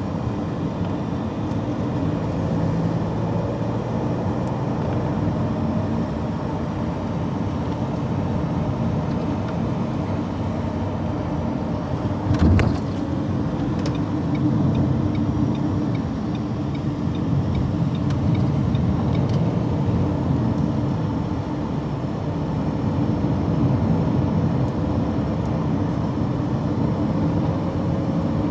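Car interior noise while driving: a steady engine and tyre rumble heard from inside the cabin, with one sharp thump about halfway through.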